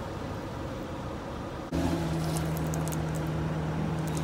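A vehicle engine running steadily at low speed: a constant low hum that comes in suddenly about two seconds in, with a few faint clicks over it.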